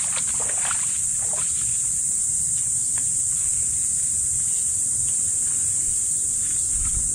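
A steady, high-pitched drone of insects, unbroken throughout, over a low rumble.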